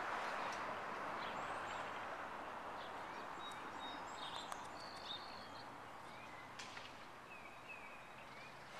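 Outdoor background noise, a steady hiss that slowly fades, with a few faint, short bird chirps scattered through it.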